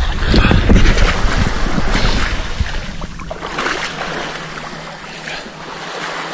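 Sea water sloshing and splashing around a camera at the surface, with wind buffeting the microphone; loud and rumbling with many knocks for the first three seconds, then settling to a steadier, quieter wash.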